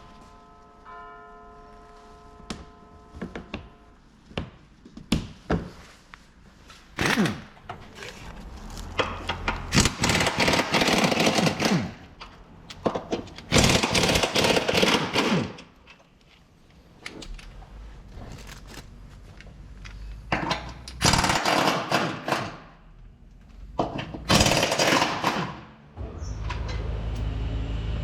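A power tool runs in about five bursts of one to two seconds each, with sharp clicks and knocks of tools in between. A steady low hum starts near the end.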